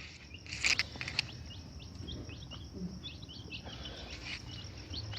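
Caged birds chirping: a run of many short, high cheeps, with a couple of light knocks in the first second.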